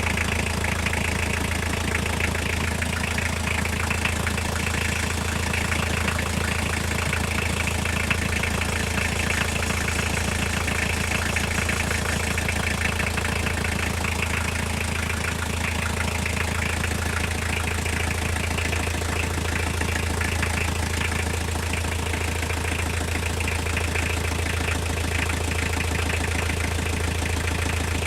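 Toyota diesel engine idling steadily with a fast, even knock running through it, a knock whose cause the owner cannot place.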